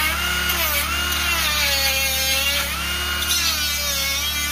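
Cordless DeWalt 20V die grinder grinding wood with a small bit, its motor whine dipping and recovering in pitch over and over as the bit is pressed in and eased off.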